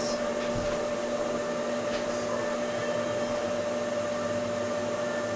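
Ninja Combi multicooker running in its steam-and-convection combi mode during the last seconds of its cook, its fan whirring steadily with a steady hum.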